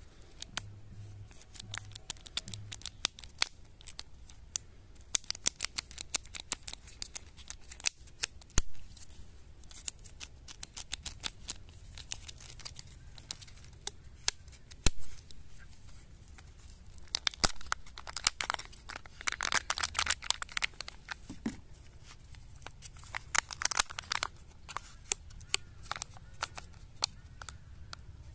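Plastic wrapper of a Kinder Joy egg being peeled and torn off by hand: crinkling and crackling with many sharp clicks, in spells. Near the end the foil seal is peeled back from the plastic egg half.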